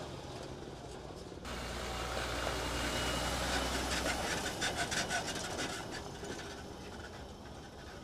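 Forestry-service fire truck driving past close on a gravel dirt road: engine hum and tyre noise that swell after a cut, with a quick run of rattling clicks near the middle, then fade as it moves away.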